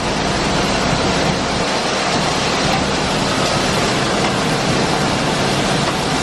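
Grain-facility machinery running: a steady, even rushing roar with a faint low hum underneath.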